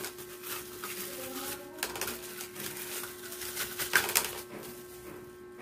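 Clear plastic bag crinkling and rustling while small hard-plastic parts are unwrapped and handled, with irregular clicks and clatter of the pieces against a plastic mesh basket and one sharp knock about four seconds in. A faint steady hum runs underneath.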